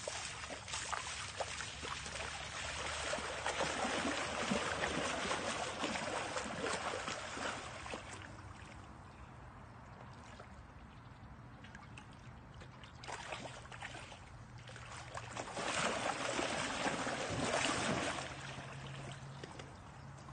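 Water splashing and sloshing as a golden retriever wades through shallow, muddy lake water. It comes in several bursts with a quieter spell in the middle.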